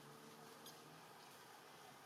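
Near silence: faint steady hiss with one brief faint click about two-thirds of a second in.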